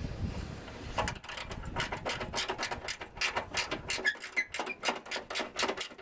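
Ratchet socket wrench on a long extension clicking rapidly as the front panel's fixing nuts are tightened up.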